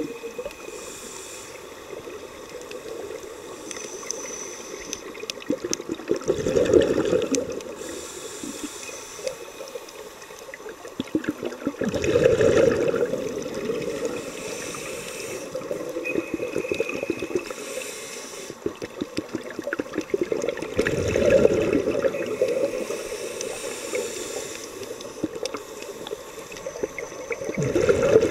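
Scuba breathing recorded underwater: a diver's exhaled regulator bubbles gurgling up in bursts about every six to nine seconds, about four times, with a steady hiss between.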